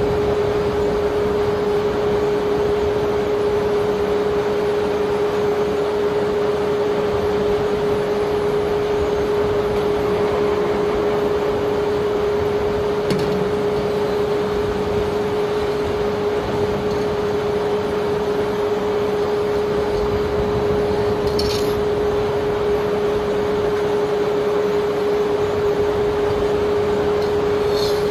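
Steady hum of unloading machinery holding one constant mid-pitched tone, over an even rushing noise of alluvial sand draining through an opening in a barge hold's steel floor. A few faint ticks.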